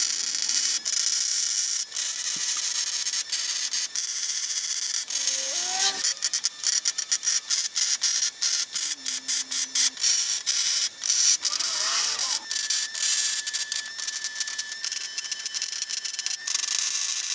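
MIG welder arc crackling and sizzling as it runs welds on the steel tubes of a car roll cage, with short pauses where the trigger is let go. From about six seconds in, the arc starts and stops many times in quick succession, then runs steadily again near the end.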